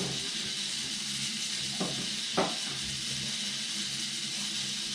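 Steady hiss with two short knocks a little over two seconds in, the second the louder.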